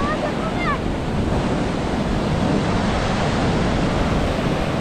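Sea surf washing onto the beach with wind buffeting the microphone, a steady rushing noise. A few faint, short high-pitched calls sound in the first second.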